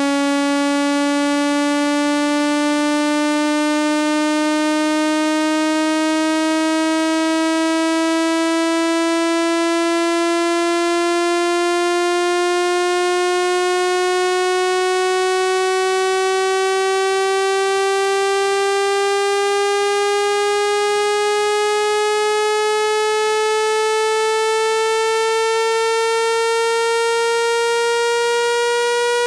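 Synthesized speaker-cleaning tone for driving water out of a phone speaker: one loud, steady, buzzy electronic tone whose pitch climbs slowly and smoothly the whole time.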